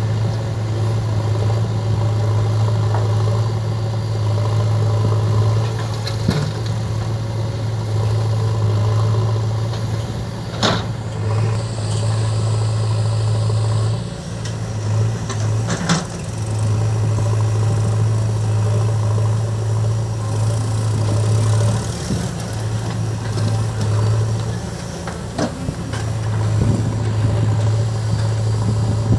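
Heavy machine's diesel engine running steadily with a low hum, dipping briefly twice, with a few sharp knocks along the way.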